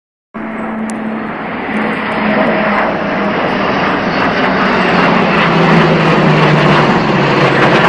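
Jet engines of a formation flyover, MiG-29K fighters with a Boeing P-8I Poseidon: loud, steady rushing jet noise that starts abruptly and grows slowly louder, with a low hum underneath that drops slightly in pitch.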